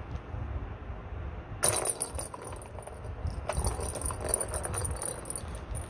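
A ball rolling and rattling around the plastic track of a cat's circular track toy. It starts suddenly about one and a half seconds in and comes in two spells with a short pause between them.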